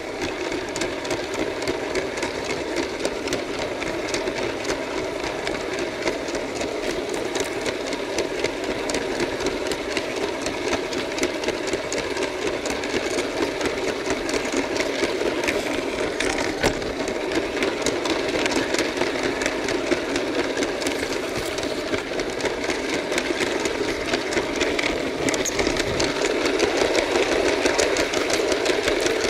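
Lego train's small electric motor and plastic gearing whirring steadily, with a fast, dense clicking and rattling of the wheels on the plastic track; a little louder near the end.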